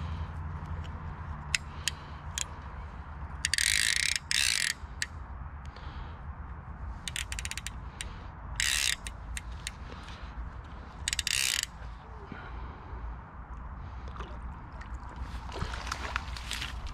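Centrepin reel's ratchet check buzzing in four short rattling bursts, with scattered clicks between them, as a hooked brown trout pulls line off the reel.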